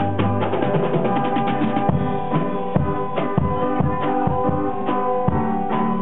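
A band playing a song, with a drum kit to the fore: a fast run of snare and tom hits in the first two seconds, then a steadier beat with heavy bass-drum hits. Other instruments hold sustained chords underneath.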